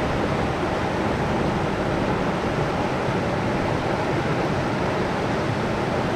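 Shallow river water rushing steadily over rocks below a weir.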